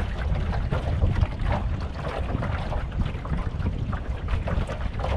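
Wind buffeting the microphone in an open fishing boat, a steady low rumble, with irregular water lapping against the hull.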